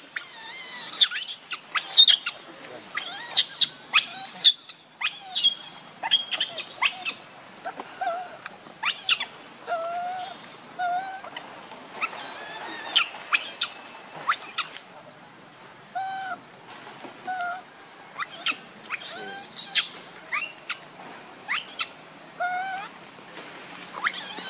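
Forest ambience: a steady high insect drone, with short hooked chirping calls repeated now and then, and scattered sharp clicks and rustles.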